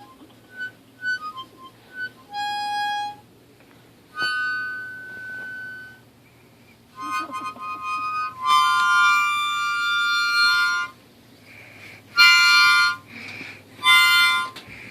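Harmonica played in a halting run: a few short single notes, then longer held notes and bursts of chords with pauses between them.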